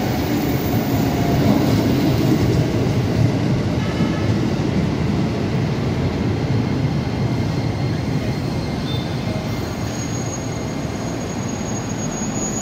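A KRL Commuter Line electric train, an ex-JR 205 series set, rolling along the platform as it slows into the station: a continuous rumble of wheels on rail that eases off gradually, with a thin high squeal in the last few seconds as it comes to a stop.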